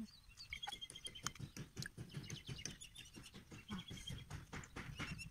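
Faint bird chirping in short, rapid trills, twice, with scattered soft clicks and knocks close by.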